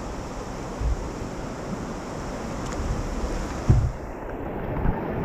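River current rushing and splashing around inner tubes, with wind buffeting the microphone. A single thump about three and a half seconds in.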